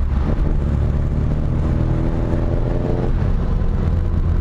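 BMW 2002's 2.0-litre four-cylinder engine pulling under acceleration while driving, a deep steady rumble with its pitch slowly rising, then dropping off suddenly about three seconds in, as at a gear change.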